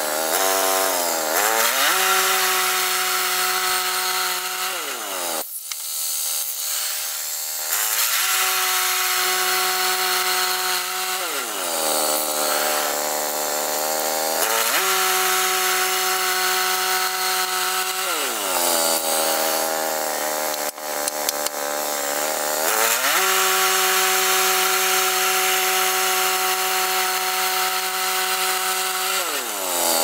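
Woodland Mills portable band sawmill running and sawing through a log with a freshly resharpened blade. The engine runs steadily, its pitch sagging and then recovering about five times, with one longer dip a little over five seconds in.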